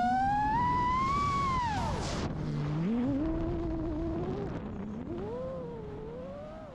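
FPV racing drone motors whining, the pitch rising and falling with the throttle, then fading out.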